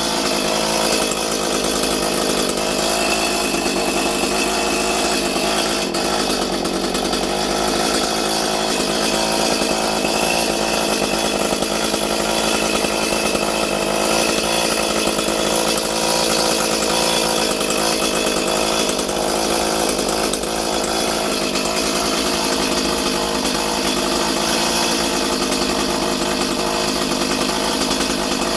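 Echo CS-310 chainsaw's small two-stroke engine running at a steady speed, without cutting.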